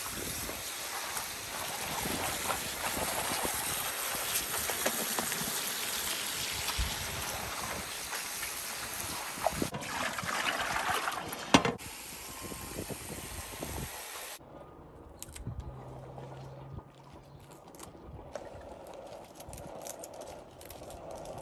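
Water running from a kitchen tap into a ceramic bowl and splashing as hands wash spinach leaves, with the bowl tipped out into a metal sink. About two-thirds of the way through the running water stops, leaving quieter splashing of wet leaves being handled in the bowl.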